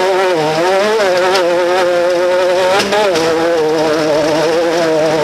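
Off-road race vehicle engine running at a steady, buzzing pitch that wavers slightly. It dips briefly and climbs back about three seconds in.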